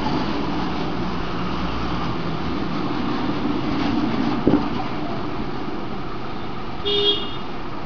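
Steady background rumble and hiss, with a single sharp click about four and a half seconds in and a brief high-pitched tone near the end.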